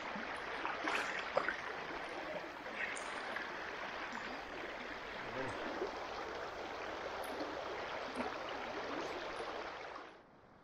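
Shallow river riffle rushing steadily around a wading angler's legs, with a few sharp splashes about a second in from a hooked trout at the surface. The water sound drops away abruptly near the end.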